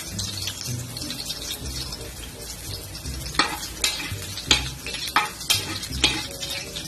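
Sliced onions sizzling in hot oil in a large aluminium wok, stirred with a small metal ladle. From about three seconds in, the ladle taps and scrapes sharply against the wok several times while the oil spatters.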